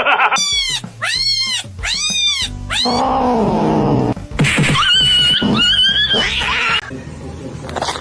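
Domestic cat meowing: four short meows that rise and fall in the first three seconds, a longer, lower, falling meow, then a long high wavering yowl.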